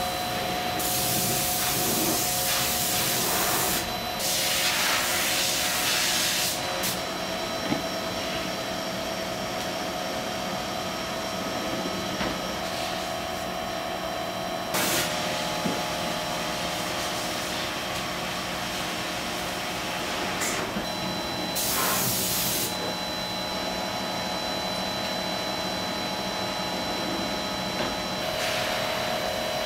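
Enclosed CNC machine used for machining knife blades, running with a steady hum and a few constant whines. Several loud hissing bursts, each one to three seconds long, come from inside the machine.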